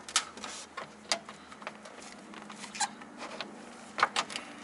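A funnel being pushed and wedged into place under the oil filter housing, giving scattered clicks and light knocks against the car's underbody, loudest right at the start and again about four seconds in.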